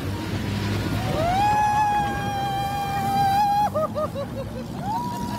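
A passenger's long high whoop of excitement, held for about two and a half seconds, then a few short yelps and another whoop starting near the end. Under it runs the steady rumble of an open jeep driving through a shallow river.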